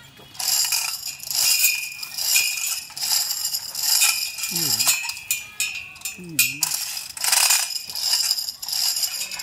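Manual chain hoist being worked hand over hand: the load chain rattles through the block in repeated strokes about once a second, with ratchet clicking, as it takes the weight of a large bronze propeller.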